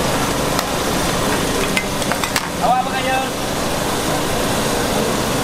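Metal spatula and ladle stirring a large wok of simmering spicy sauce, with a few sharp clinks of metal on the wok in the first half, over a steady rushing background noise.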